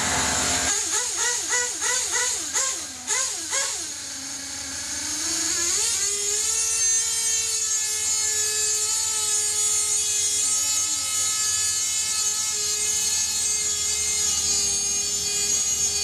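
High-pitched whine of radio-controlled racing cars' small motors: the pitch surges up and down in quick succession for the first few seconds as the cars work the throttle through the corners, then dips, climbs again about six seconds in and holds a steady high whine.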